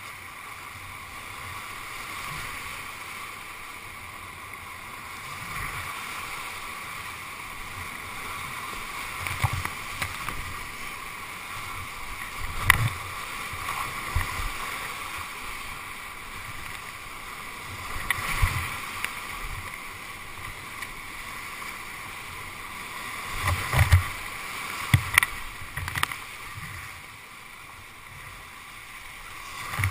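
Whitewater rapids rushing steadily around a kayak, recorded on a GoPro, with sharp knocks and splashes several times as paddle strokes and waves hit the boat and camera. A cluster of the loudest hits comes about three-quarters of the way through.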